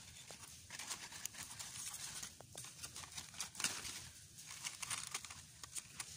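Dry leaves and paper crinkling and crackling as a hand shifts them about, a stream of irregular sharp clicks, the loudest about three and a half seconds in.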